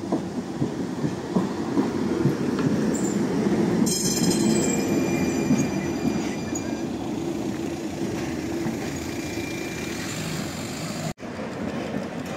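Electric city tram rolling close past, its wheels rumbling on the rails with a few knocks, and a high wheel squeal from about four seconds in that lasts a few seconds. After a short dropout near the end, another tram rolls past more quietly.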